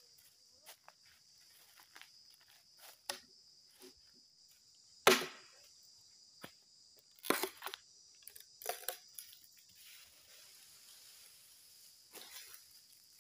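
A hatchet chopping at a bamboo pole laid on a log: scattered sharp chops, the loudest about five seconds in and a quick cluster around seven seconds. Dry leaves crackle underfoot, over a steady high buzz of insects.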